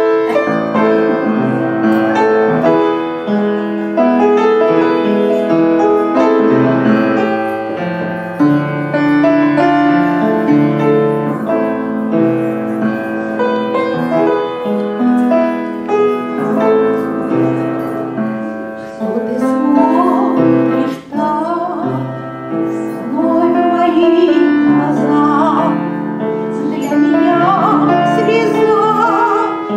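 Woman singing into a microphone over piano accompaniment; the piano plays alone at first and her voice comes in about two-thirds of the way through.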